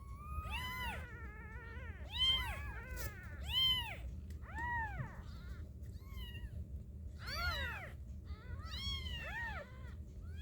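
Newborn kittens, three days old, mewing over and over in short high-pitched cries that rise and fall, several at once and overlapping. They are calling for their absent mother to be fed.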